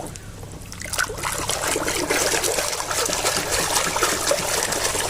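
Water splashing and dribbling as hands scrub a plastic toy car in a tub of water, building up about a second in.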